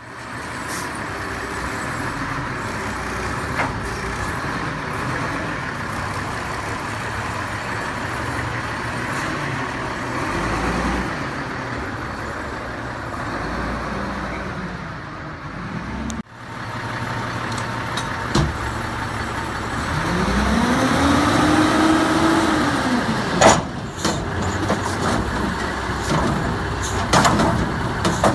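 Diesel engine of an old Peterbilt 310 front-loader garbage truck running steadily. Past the middle the engine revs up and back down over a few seconds as the hydraulic forks lift the container, and sharp metallic clanks follow near the end.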